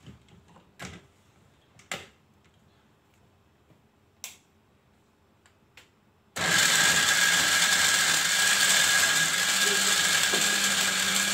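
A few light clicks, then about six seconds in a countertop blender switches on abruptly and runs steadily with a motor whine, pureeing chili, garlic and liquid into a sauce.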